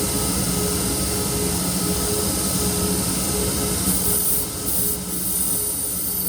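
Power grinder running steadily with a hum and a high hiss, grinding down the edge of a steel chef knife to straighten its bow and remove edge chips.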